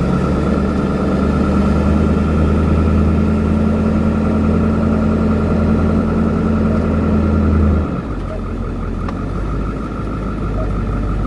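Ambulance engine drone heard from inside the cab as the vehicle pulls away and turns. The low engine note drops suddenly about eight seconds in, as the engine eases off or shifts gear.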